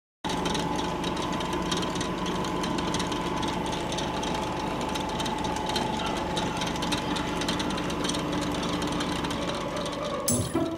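A steady mechanical clattering drone with a constant hum underneath, cutting in abruptly from silence. A sharp hit comes near the end.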